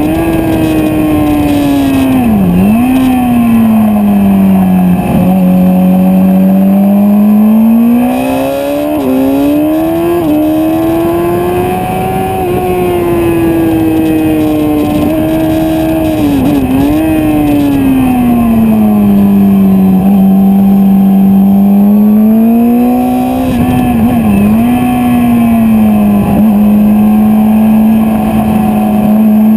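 Motorcycle engine under hard riding on a road course. Its note falls and climbs slowly with speed through the corners, with several short sharp dips in pitch at the gear changes.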